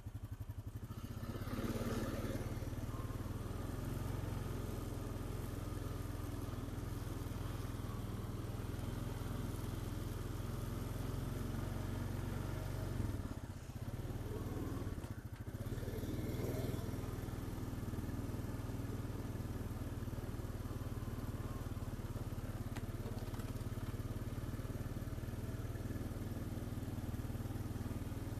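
ATV engine running steadily as it is ridden, dropping briefly twice in the middle.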